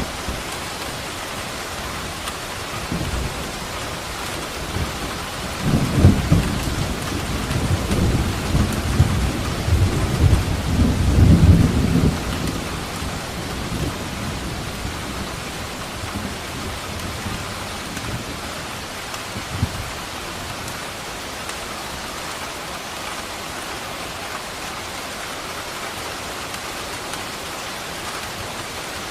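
Steady rain falling, with a roll of thunder rumbling low for about six seconds starting about six seconds in, and fainter rumbles before and after.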